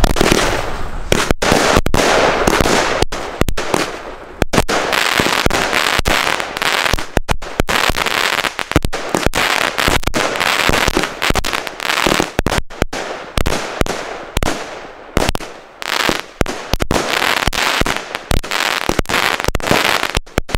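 A Klasek Signature Range 196-shot compound fireworks battery with 20 mm tubes, firing straight shots: a rapid, unbroken string of launches and star bursts, many sharp reports close together.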